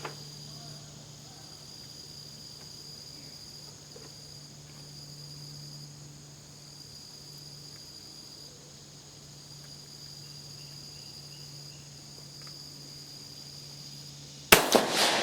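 Steady insect chirring for most of the stretch, then a single rifle shot near the end that echoes briefly: an Italian Vetterli 1870/87/15 rifle, converted to 6.5 mm, firing a cast-bullet load.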